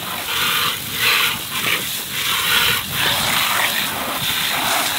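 Garden hose spraying water onto a plastic kids' ride-on tractor, a hissing splash that rises and falls unevenly as the stream moves over the toy.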